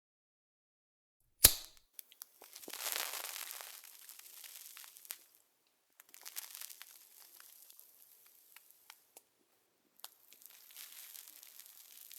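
A sharp crack, then three stretches of crackling, crumpling noise with scattered small clicks, each fading away.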